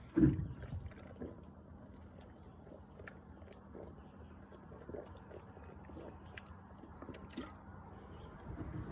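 A person gulping down a carbonated energy drink: soft swallows and small wet mouth clicks, with one much louder sound about a quarter-second in.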